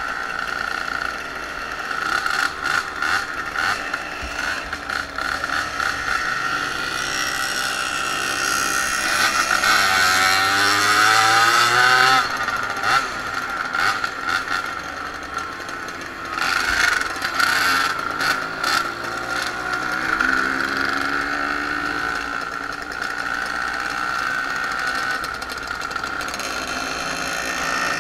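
Small two-stroke moped engines running under way, with a steady buzzing drone. The pitch climbs as the engine revs up about ten seconds in, drops back near twelve seconds, and rises again a few seconds later. Bursts of rushing noise come and go over it.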